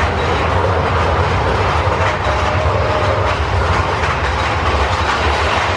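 Big Thunder Mountain Railroad mine-train roller coaster running along its track: a steady low rumble of the wheels with rattling clatter, and a faint brief whine about two seconds in.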